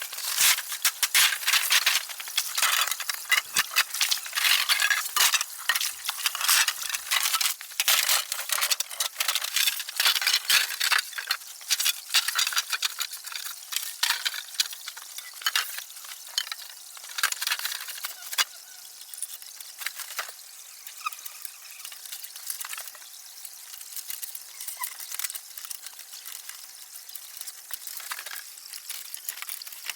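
Rain pattering on tent fabric: a dense crackle of many small drop impacts, heavy at first and thinning out past the halfway point.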